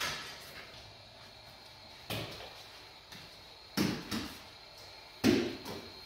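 A few sudden knocks and clatters of bakery work over steady room noise: one about two seconds in, a quick double knock near four seconds, and the loudest just after five seconds.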